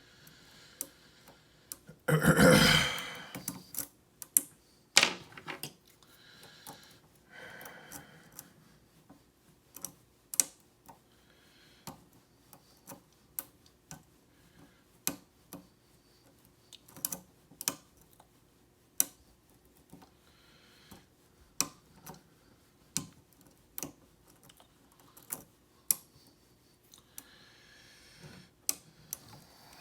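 Lock pick and tension wrench working the pins of a Schlage SC1 pin-tumbler cylinder: small, irregular metal clicks and ticks, a few each second. About two seconds in there is a loud rustling burst.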